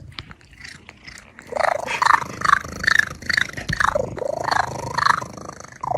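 A cat giving a quick run of short meows, about two a second, starting about a second and a half in.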